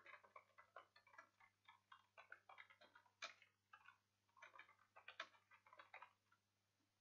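Computer keyboard typing: a quick, irregular run of faint keystroke clicks that stops about six seconds in.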